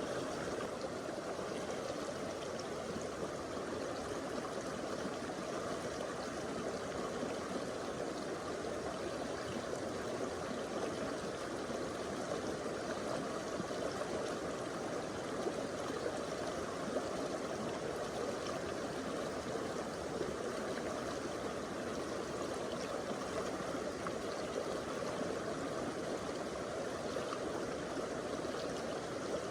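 Stream water flowing and splashing over rocks, a steady rushing with no breaks.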